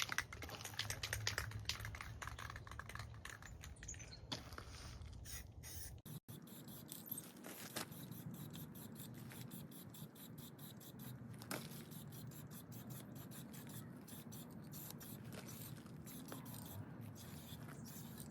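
Aerosol spray can of clear enamel in use: rapid rattling clicks as the can is shaken, then, after a break about six seconds in, a faint spraying hiss with occasional clicks.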